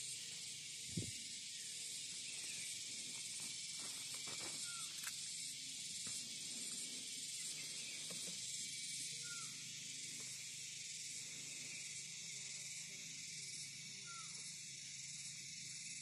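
Steady high hiss of an insect chorus in the trees, with a short chirping call repeated three times about five seconds apart and a single dull bump about a second in.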